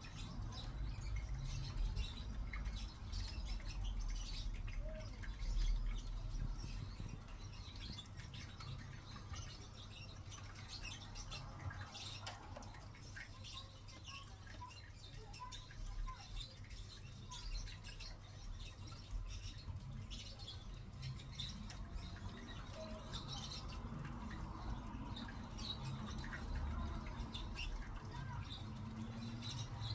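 Pet lovebird giving short, scattered chirps throughout, over a steady low rumble.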